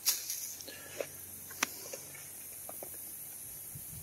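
A few sharp clicks and knocks, the loudest right at the start and another sharp one about a second and a half in, over a steady high hiss of outdoor background.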